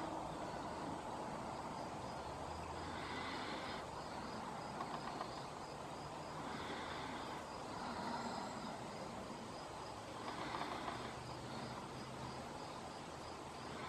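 Outdoor ambience: insects chirping in a steady, evenly repeating pattern over a low hum of distant traffic that swells and fades.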